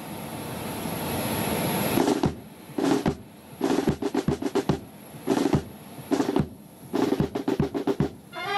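Music led by drums: a drum roll that swells for about two seconds and cuts off, then a run of short snare rolls and drum strokes in an uneven pattern.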